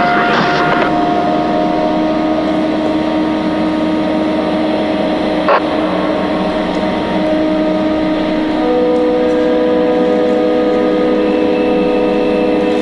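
A steady, dense droning hum made of several held tones. A new held tone comes in about two-thirds of the way through, and a single sharp click sounds near the middle.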